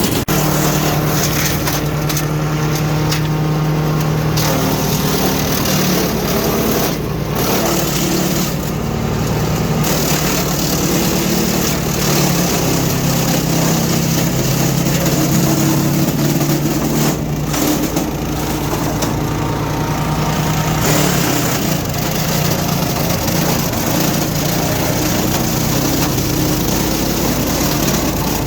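DR PRO XL575 self-feeding wood chipper running with its small gas engine at a steady drone, its note shifting a few times, while chipping brush limbs.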